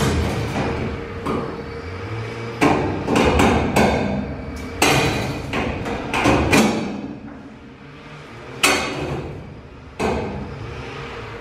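A series of about ten sharp metallic cracks and knocks, most packed together in the middle, each ringing briefly in the steel box of a shipping container, as threaded hanger rods are fixed to the container's steel ceiling.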